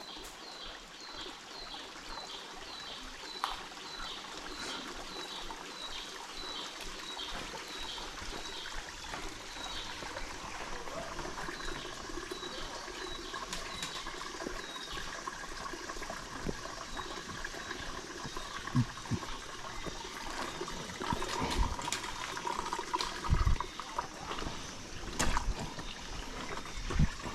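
Water trickling steadily, with a short high chirp repeating about twice a second for the first fifteen seconds or so, and a few dull thumps in the second half.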